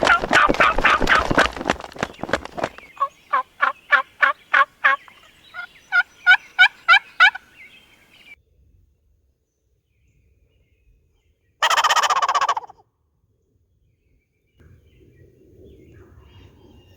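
Wild turkey calling done by a hunter: the end of a rapid fly-down cackle, then a run of evenly spaced hen yelps for about five seconds. After a pause, one loud gobble lasting about a second comes roughly twelve seconds in, and a faint low rustle follows near the end.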